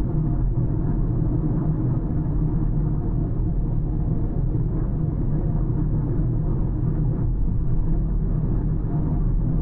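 A car driving along at a steady pace: a constant low rumble of tyres on the road and the engine, with no changes or sudden sounds.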